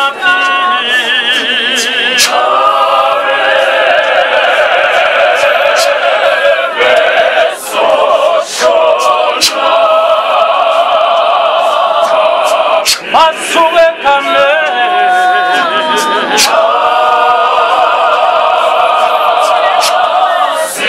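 Choir singing unaccompanied in harmony, several voices holding long notes with wavering vibrato and short breaks between phrases, with scattered sharp clicks.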